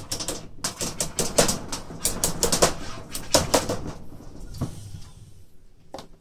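A quick, irregular run of sharp clicks and knocks, packed close together for about three seconds, followed by a short rustle and a couple of single clicks.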